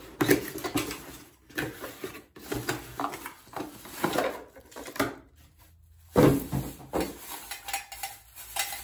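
A new metal Corvette headlight bucket being unpacked and handled: rustling and scraping of packaging with clattering knocks, the sharpest knocks about a quarter second in and again about six seconds in.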